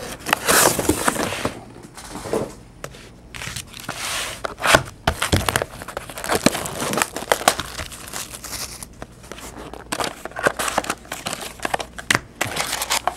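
Plastic shrink-wrap being torn and crumpled off a trading-card hobby box: an irregular run of crinkling and tearing with sharp crackles.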